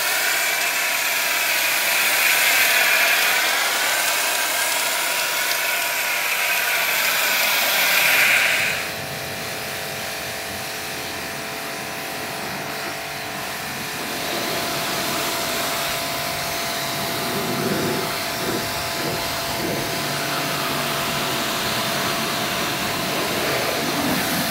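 Pressure washer running, its motor and pump humming steadily under the hiss of the water spray. It is louder for the first eight seconds or so, then drops to a steadier, quieter level.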